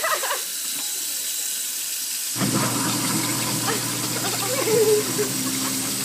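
Tap water running into a kitchen sink, then about two and a half seconds in a garbage disposal switches on with a sudden, steady motor hum and grinds up a whole pancake.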